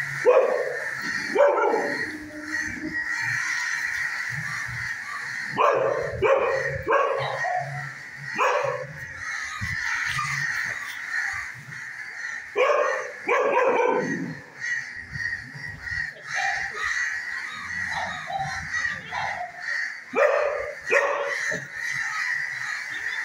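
Street dogs barking at a gray langur in short clusters of sharp barks with pauses between, over a steady high-pitched hum.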